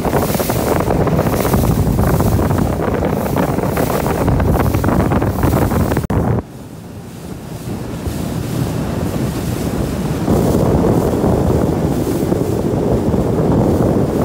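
Wind buffeting the microphone and water rushing past a moving boat, a steady noisy rush. It drops out abruptly about six seconds in, then comes back quieter and builds up again.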